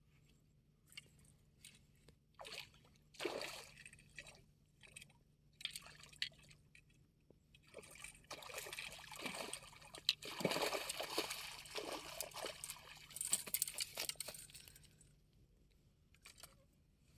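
A hooked fish splashing and thrashing in shallow water at the bank as it is brought in and landed. The splashing comes in separate bursts at first, then runs on as a long spell of churning water in the second half before stopping.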